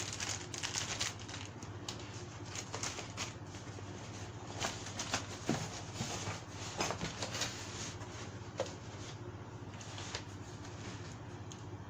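Plastic kit parts and their bags being handled: scattered light clicks, taps and crinkles, busiest in the first second and again in the middle, over a steady low hum.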